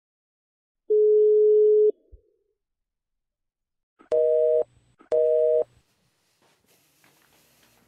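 Telephone line tones: a single steady tone for about a second, then two short beeps a second apart, each with two pitches sounding together, in the pattern of a busy signal.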